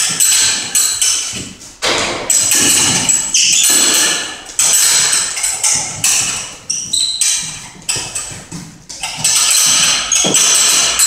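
Heavy battle ropes being whipped and slapping the floor in fast, rapid strikes. The slapping comes in runs of about two seconds with brief breaks between.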